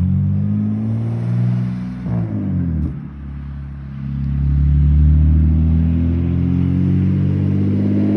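BMW E46 325ci's M54 inline-six with a straight-pipe exhaust (muffler and resonators deleted) pulling under acceleration: the engine note rises, drops during a gear change about two to three seconds in, then climbs steadily again in the next gear.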